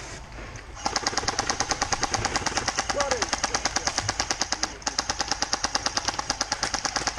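Electric airsoft gun firing on full auto: a long, rapid, evenly spaced stream of shots starting about a second in.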